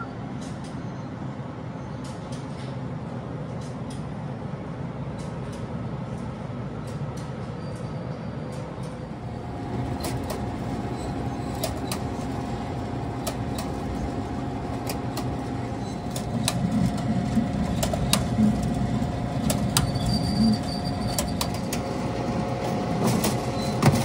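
APW Wyott conveyor toaster running: a steady mechanical hum with scattered clicks and rattles from its moving wire belt. The hum's steady tones come in about ten seconds in, over a constant low background rumble.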